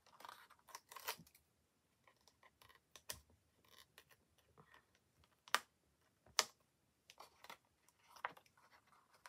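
Faint, scattered clicks and scratches of fingernails picking at foam pads and peeling their backing paper off a card window frame, with a few sharper ticks about three, five and a half and six and a half seconds in.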